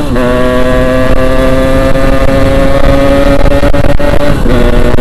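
Yamaha RX-King 135cc single-cylinder two-stroke engine at high revs under hard riding. Its note drops sharply on an upshift right at the start, then holds steady, and dips briefly near the end. A wind rumble runs underneath.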